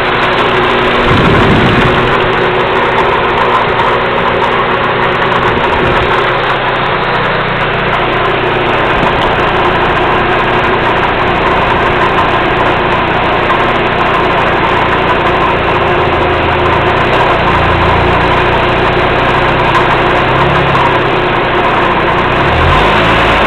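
Car engine idling with a rattle, which the owner takes for a bad sound.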